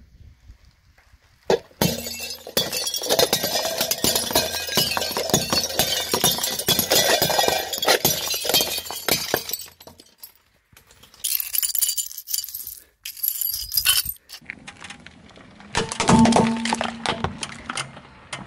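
A car tyre rolling over white plates on asphalt, breaking them: a long run of cracking, crunching and clinking of breaking plates. After a short gap come two shorter bursts of crunching.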